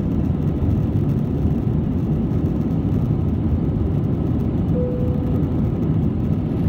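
Airliner cabin noise during the climb out: a steady low rumble of the engines and rushing air, with a short steady tone about five seconds in.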